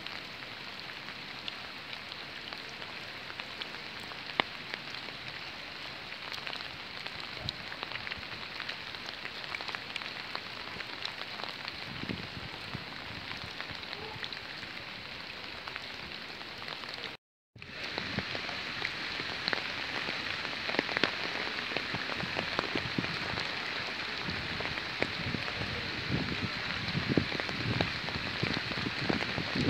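Rain falling steadily on wet pavement and puddles, an even patter of many small drops. The sound cuts out for a moment about halfway through, then returns a little louder.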